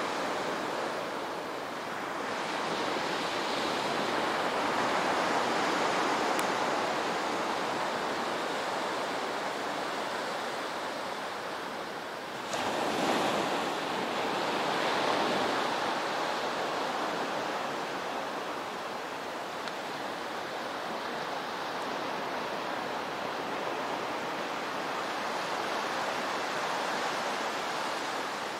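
Small waves washing onto a sandy beach: a steady rushing surf that swells and fades slowly, with a sudden step up in loudness about twelve seconds in.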